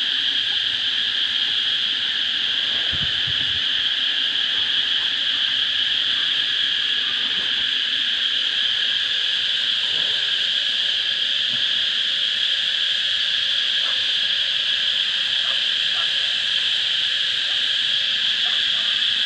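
A steady, high-pitched insect chorus droning without a break, with a few faint knocks and rustles underneath.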